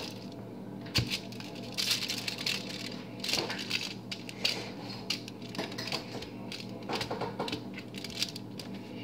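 Scattered light scrapes, clicks and crinkles of a plastic utensil spreading glaze over a meatloaf on a foil-lined baking pan, with fingers brushing the foil. A steady low hum runs underneath.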